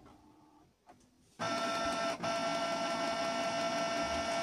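Canon PIXMA G3411 inkjet printer running its power-on initialization after being switched off and on. A faint whir is followed, about a second and a half in, by a loud steady motor whine with one brief break, lasting about three seconds.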